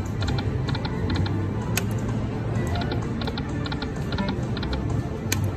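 Dragon Link slot machine's electronic game sounds: quick ticking chirps repeating several times a second, with a couple of sharper clicks, over a low hum of casino din.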